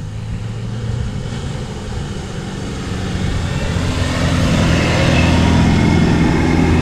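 Mitsubishi Triton ute's engine working hard under load as it tries to climb a soft sand hill, with sand and tyre noise over it. The engine gets louder about halfway through.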